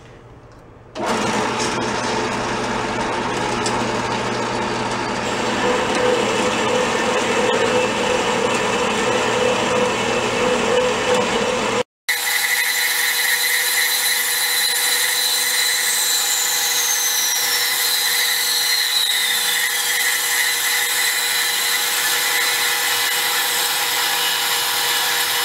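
Jet horizontal metal-cutting band saw running and cutting through a steel tube, slicing off a ring. It starts about a second in and runs steadily, with a brief break about halfway.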